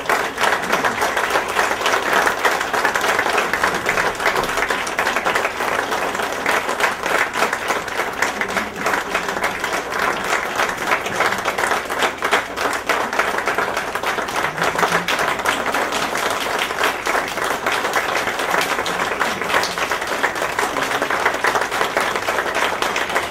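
Audience applauding steadily, a dense round of many hands clapping.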